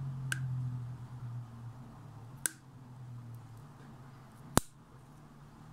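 Three sharp little clicks of fingers handling small metal fittings on the intake ports of a motorcycle engine's cylinder head, the last one, about four and a half seconds in, the loudest. A low hum fades away over the first two seconds.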